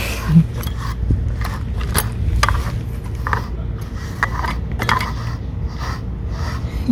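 A cat grooming brush scraping through a cat's fur in repeated short strokes, about two a second, over a steady low background rumble.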